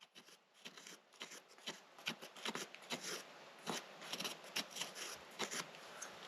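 Tool scraping and picking at loose volcanic ash (Mazama tephra) in a sediment face while a sample is collected: irregular gritty scrapes and small clicks, several a second.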